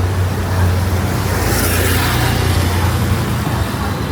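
Road traffic: a steady low engine hum, with a vehicle passing close by about halfway through.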